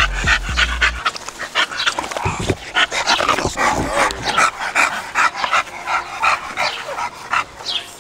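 A dog panting rapidly, in short quick breaths about three a second.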